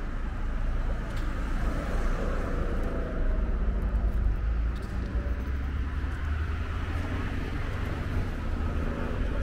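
Road traffic on a city street: passing cars and engines making a steady low rumble.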